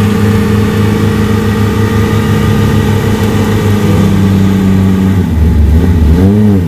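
An off-road vehicle's engine running loud and close at a steady speed, then the revs drop about four seconds in and it is blipped up and down a couple of times near the end.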